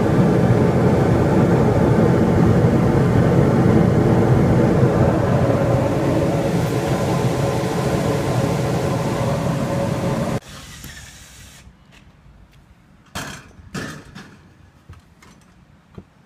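Carrier rooftop unit's gas heating section running on test: the burners and new inducer motor give a loud, steady roar with a hum in it. It cuts off abruptly about ten seconds in, followed by a few faint knocks.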